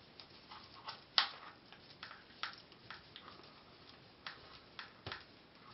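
Screwdriver forcing a metal screw into a small hole drilled in a plastic battery box: scattered faint clicks and creaks as the screw turns and the plastic gives, the sharpest about a second in.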